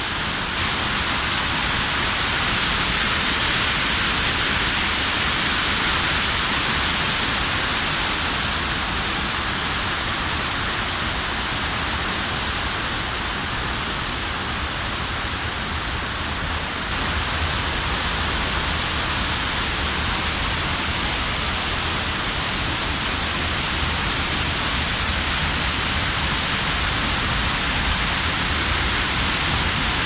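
Small river cascade rushing over boulders: a steady, dense roar of white water tumbling through a rocky channel.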